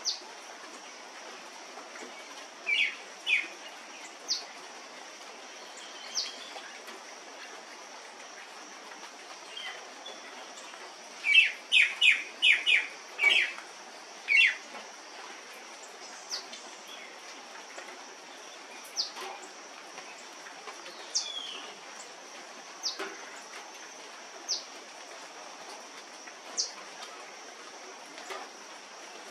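Scarlet-rumped cacique calling: short high falling notes every couple of seconds, a pair of calls a few seconds in, and a loud run of quick clear notes about halfway through. A steady high hum runs underneath.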